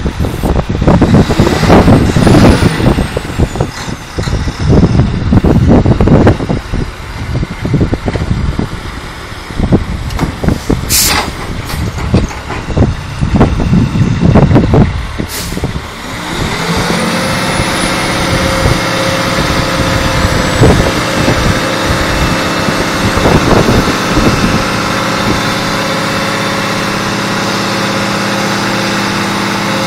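Heavy oilfield winch truck's diesel engine working the winch under load. The first half has uneven loud rumbling and two short sharp hisses of air. A little past halfway the engine revs up and then holds a steady high speed.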